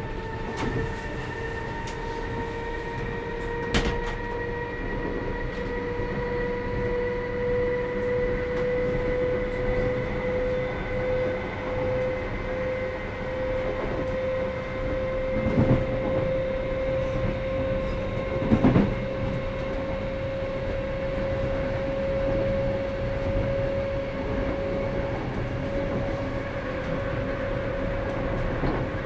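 Inside a British Rail Class 319 electric multiple unit under way: wheels rumbling steadily on the track, with a whine from the DC traction motors and GTO thyristor control rising slowly in pitch as the train gathers speed. A few knocks come through the floor, the loudest two in the middle.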